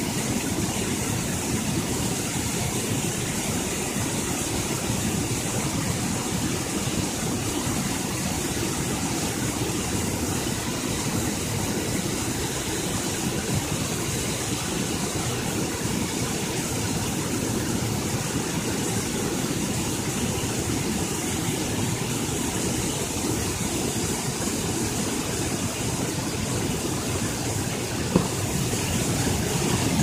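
Water pouring over a low dam's spillway in a steady rushing roar, with one brief knock near the end.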